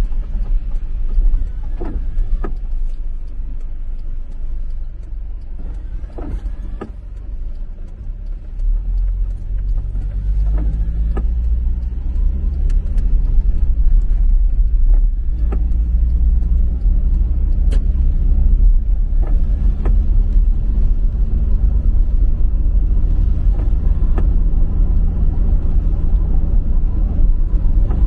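Interior of a road vehicle driving on rain-wet streets: a steady low engine and road rumble that eases off a few seconds in, then the engine note rises as the vehicle speeds up from about nine seconds in and holds steady after. A few faint clicks are scattered throughout.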